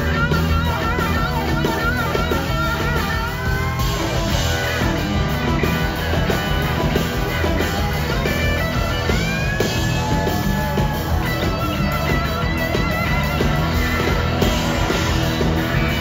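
Live rock band playing an instrumental passage: a lead electric guitar plays sustained notes with vibrato and slow pitch bends over bass and drums.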